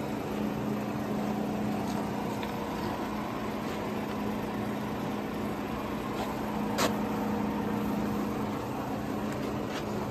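Steady machinery hum with a low drone, broken by a few light clicks, the sharpest about seven seconds in.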